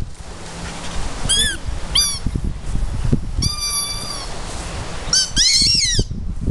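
A dog whining in high-pitched cries, eager for a toy to be thrown: two short falling whines, then a longer held one, and a louder wavering one near the end. Wind rumbles on the microphone underneath.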